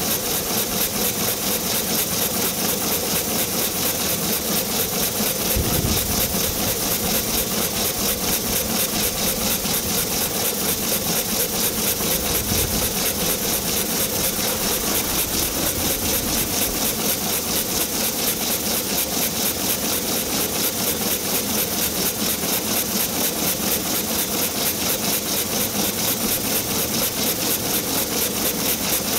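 1902 Toledo steam carriage's two-cylinder steam engine running steadily with its cylinder petcocks open, each stroke blowing steam out in a rapid, even chuff and hiss.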